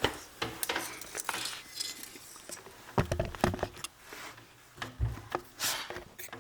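Handling noise of a TV power cable and plug being worked into place: scattered clicks, knocks and rustling, with a few heavier thumps around the middle and near the end.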